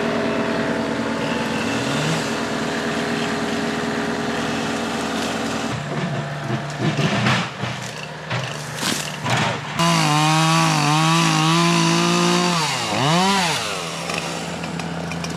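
An engine running hard. Its pitch is steady at first, then wavers up and down with the load and dips and recovers near the end. A stretch of sharp cracking and knocking comes in the middle.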